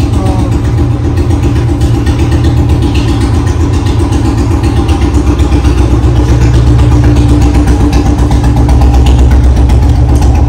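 Royal Enfield Bullet's single-cylinder engine idling with a steady fast beat, growing a little louder in the second half.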